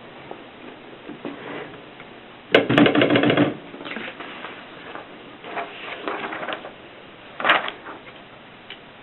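Antique Mercedes manual typewriter clattering in irregular runs of quick mechanical strokes. The loudest, densest run comes about two and a half seconds in, followed by softer clusters and a sharp clack near the end.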